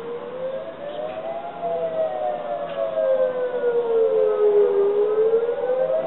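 Industrial site warning siren sounding its 10am test: a slow wail that rises over the first second and a half, falls gradually until near the end, then starts rising again, growing louder as it goes.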